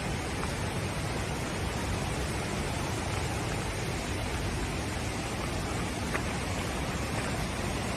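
Steady, even rush of flowing water, like a waterfall or a fast mountain stream.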